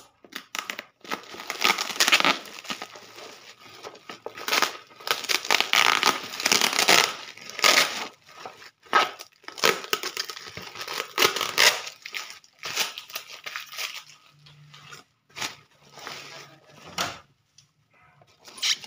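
Clear plastic packing tape being peeled and ripped off a bubble-wrapped parcel, with the bubble wrap crinkling under the hands. The rustling and ripping come in irregular bursts, then thin out to a few scattered crackles over the last few seconds.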